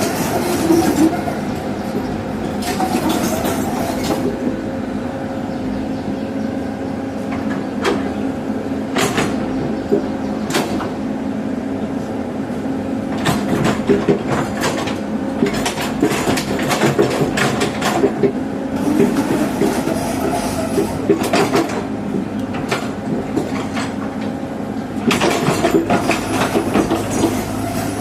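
Heavy tracked earthmoving machinery levelling soil: a steady diesel engine drone with frequent sharp metallic clanks and knocks.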